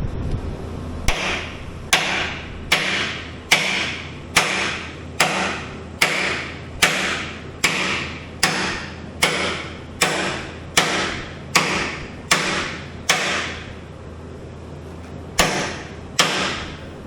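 Hammer blows on metal while working the axle bushing of a Skyjack SJIII 3219 scissor lift. A steady run of about sixteen strikes, a little faster than one a second, each ringing briefly, then a pause and two more blows near the end.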